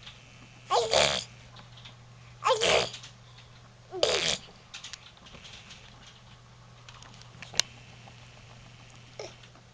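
A baby making a funny noisy sound with her mouth, three short bursts about a second and a half apart, then a single sharp click later on.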